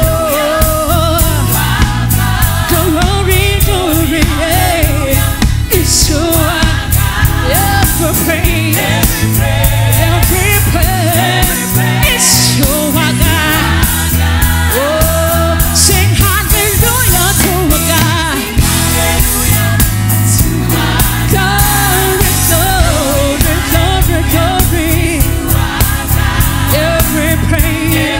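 Live gospel praise music: singers over a band with a steady beat and bass.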